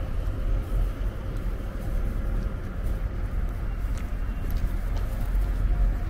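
Street ambience: a steady low rumble of road traffic, with a few faint ticks over it.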